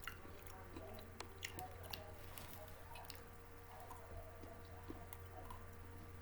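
Close-up chewing of snack food: soft, wet mouth sounds with scattered small clicks and smacks.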